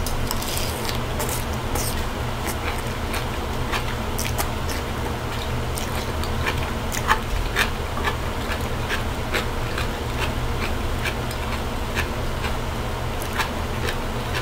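Close-up eating sounds of zucchini noodles: chewing and mouth clicks, with crinkling of the paper and aluminium-foil wrap and taps of a plastic fork, as scattered sharp clicks over a steady low hum.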